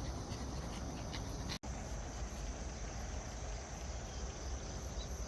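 Crickets chirring outdoors: a steady, high, continuous trill, with a low rumble of wind on the microphone beneath it and a momentary break in the sound about a second and a half in.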